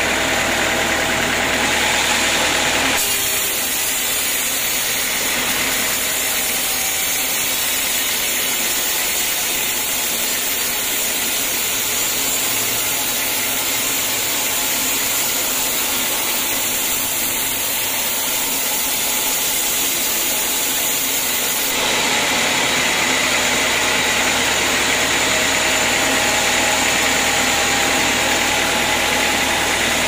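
Band sawmill running with its blade sawing through a teak beam: a steady, loud mechanical noise with a sawing hiss. The sound changes abruptly about three seconds in, losing much of its low hum, and changes back near the end.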